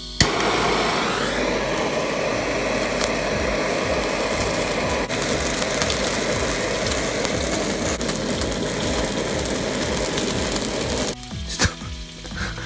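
Handheld gas cooking torch lit with a click and running with a steady hiss, searing slices of Greenland halibut engawa as their fat catches fire. The torch cuts off suddenly about eleven seconds in, leaving the fish fat sizzling on the steel tray.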